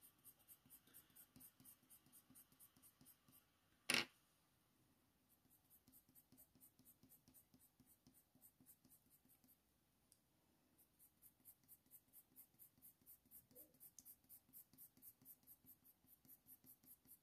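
Faber-Castell Polychromos coloured pencil scratching faintly on hot-press watercolour paper in quick, short, even strokes, about four or five a second, in three runs with short pauses between them. A single sharp knock comes about four seconds in.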